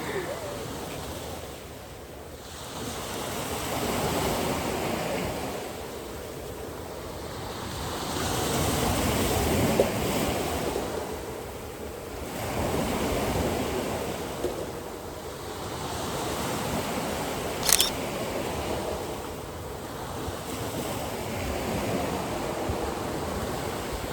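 Surf breaking on a beach, the wash of the waves swelling and falling back every few seconds. A single sharp click cuts through about three-quarters of the way in.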